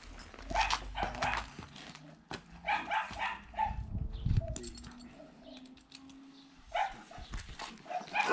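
A dog barking in three short bouts of quick barks with pauses between, at draft horses it has not yet met.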